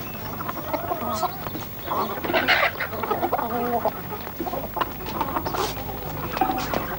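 Chickens clucking in a string of short, bending calls, with one louder call about two and a half seconds in.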